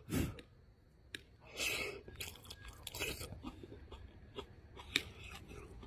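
A person eating close to the microphone: chewing and biting on stir-fried onion and cured pork, with a few short clicks, the sharpest about five seconds in.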